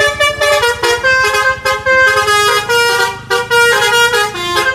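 Bus telolet horn: a set of multi-tone bus horns playing a quick, jaunty melody of changing notes, over a low engine rumble.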